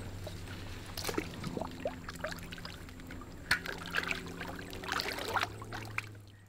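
Shallow water splashing and trickling in short irregular bursts as a peacock bass is lowered by hand into the water and released, over a steady low hum. The sound fades out near the end.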